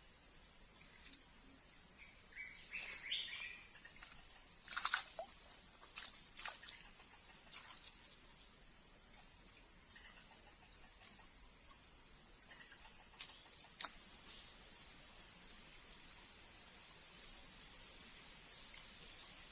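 Insects chirring in a steady, high-pitched continuous drone, with a few faint clicks and a brief chirp about three seconds in.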